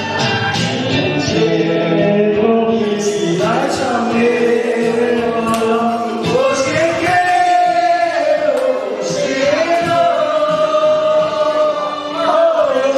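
Music with a group of voices singing together, the melody bending between notes and then held in long notes in the second half.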